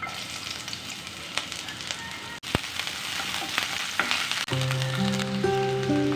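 Food frying in a hot pan, an even sizzle dotted with small crackles. A few seconds in, soft music with held notes starts under the sizzling.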